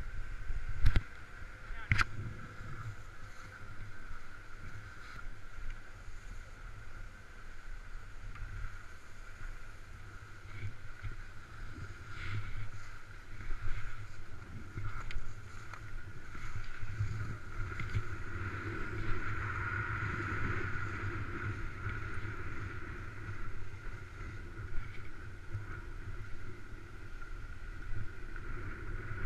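Wind rushing over a helmet-mounted action camera's microphone, with skis hissing and scraping on packed snow. There are two sharp knocks about one and two seconds in.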